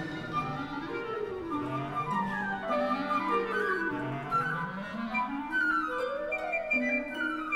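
Orchestral music: flutes and clarinets play quick runs that rise and fall and cross over one another in several overlapping lines.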